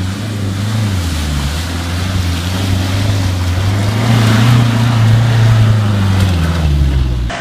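Land Rover Defender's engine revving hard under load as it drives through mud and water close by, its pitch climbing through the first half and then easing off, with the tyres churning and splashing.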